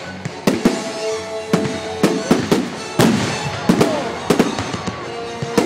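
Aerial firework shells bursting in quick succession, about a dozen sharp bangs, with music playing underneath.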